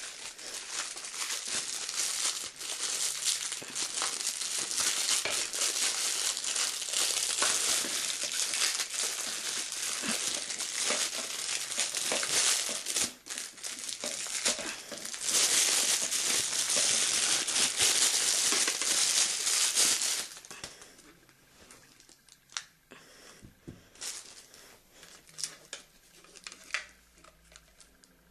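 Packaging crinkling and rustling as it is handled and unwrapped, near-continuous for about twenty seconds, then dropping to scattered light clicks and handling noises.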